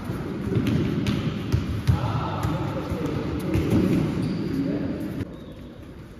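Netballs slapping into hands and thudding on the court floor during passing drills, a string of sharp knocks echoing in a large sports hall, with players' voices murmuring underneath. The knocks die down about five seconds in.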